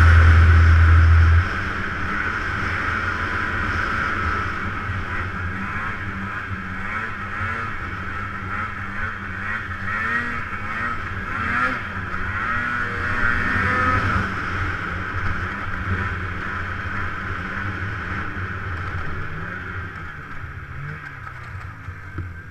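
Polaris snowmobile engine running, loud for the first second and a half, then dropping suddenly to a lower, steadier running sound with a wavering pitch that fades gradually toward the end.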